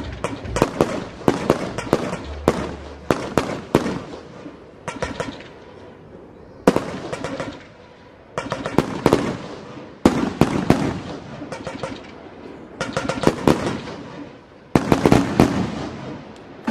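Fireworks show: mortar-fired aerial shells going off in rapid volleys of sharp bangs and crackles. A fresh, louder salvo starts several times, with short lulls between.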